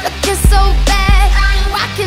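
Pop song with a sung vocal over a heavy bass line and a steady drum beat.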